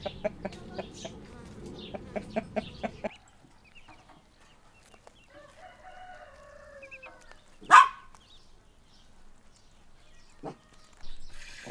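A rooster clucking in a quick run of short, sharp notes, about four a second, for the first three seconds; then, after a lull, a faint drawn-out rooster crow about five seconds in. Near eight seconds a single loud, short, high call rings out.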